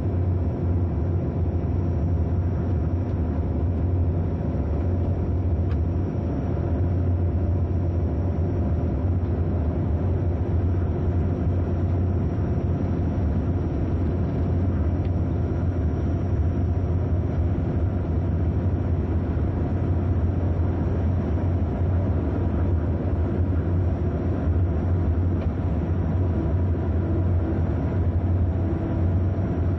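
Train running along the line, heard from inside the driver's cab: a steady rumble with a strong low hum.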